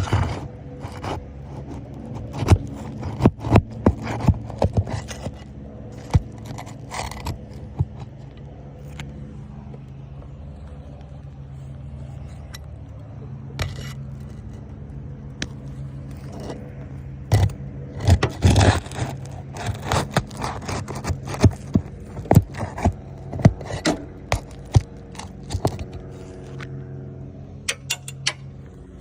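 Asphalt roof shingles being worked loose by hand: irregular scraping and sharp clicks, busiest in the first few seconds and again about two-thirds of the way through, as the roofer lifts the shingles to find where a damaged shingle starts and ends. A steady low hum runs underneath.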